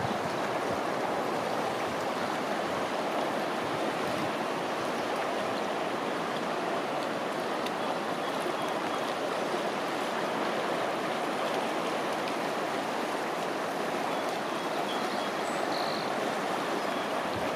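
Steady rushing of a clear mountain river running fast over shallow riffles.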